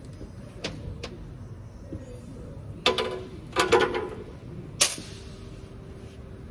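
Metal parts and tools being handled on an engine's timing gear area: a couple of light clicks, then two clanks with a short metallic ring about three seconds in, and a single sharp knock near five seconds.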